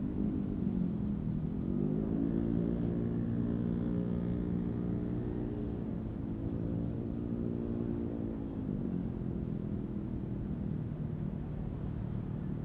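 Airbus A330 airliner's twin jet engines during the landing rollout: a droning hum that rises a second or two in as reverse thrust is applied, holds for several seconds, and falls away around nine seconds in as the engines spool back down.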